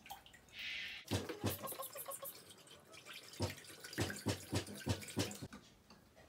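A liquid mixture being whisked by hand in a bowl or glass: a run of irregular sharp clinks from the whisk striking the side of the container, from about a second in until about five and a half seconds, after a short hiss.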